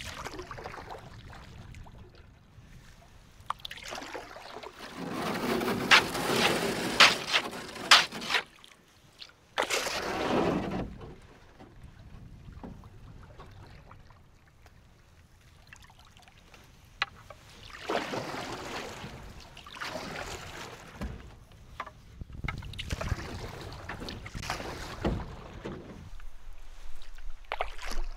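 Canoe paddle strokes: water swishing and dripping off the paddle in separate surges every few seconds, with a few sharp knocks about six to eight seconds in.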